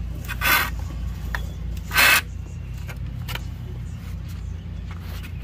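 Nylon cord being pulled through metal grommets in carpet step covers: two short noisy pulls, about half a second and two seconds in, the second louder, with a few faint clicks between. A steady low hum runs underneath.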